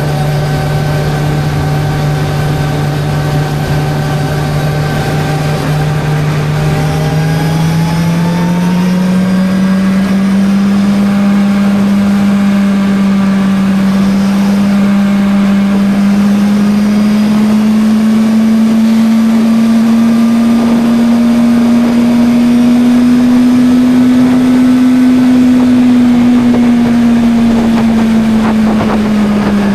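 Suzuki GSR 600's inline-four engine running steadily while riding. Its pitch rises about eight seconds in, climbs slowly for a while, then drops near the end.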